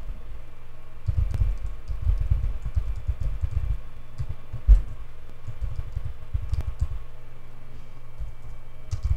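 Typing on a computer keyboard: a quick, irregular run of keystrokes, with one louder key strike about halfway through.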